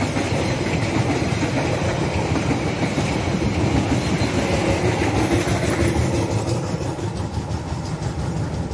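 Passenger train coaches rolling past on their steel wheels and rails. The sound eases off in the last couple of seconds as the final coach pulls away.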